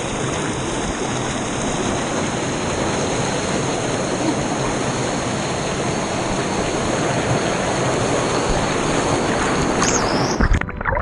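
Waterfall rushing: a steady, loud noise of falling water that breaks off abruptly near the end.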